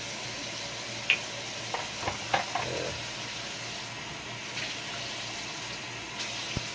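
Steady hiss with a few short clicks and taps.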